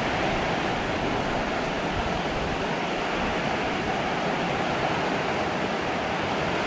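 Heavy hurricane rain falling steadily.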